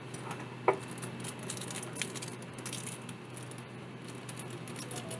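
Small clicks and handling noises from a laptop being worked on by hand: one sharp click about two-thirds of a second in, a fainter tick around two seconds, and light rustling over a steady low hum.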